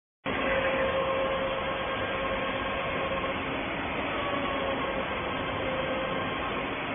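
Robotic welding cell running: steady machinery noise with a faint whine that breaks off and returns a few times.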